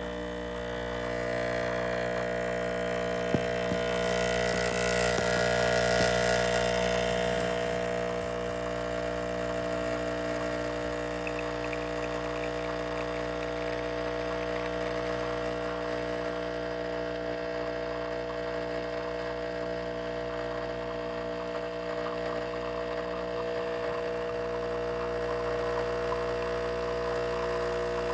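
Espresso machine pump humming steadily while pulling a shot, with a wider hiss swelling for a few seconds early on and a sharp click about three seconds in.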